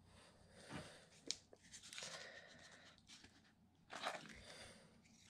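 Lid of a small plastic tub of pay dirt being worked off by hand: faint crackling and scraping of plastic, with one sharp click about a second in.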